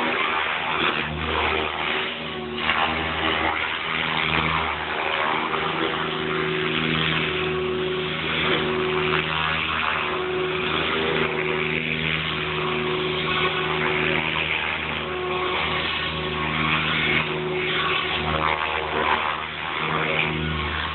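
Radio-controlled helicopter in flight, its rotor and motor giving a steady pitched hum that swells and fades a little as it moves around.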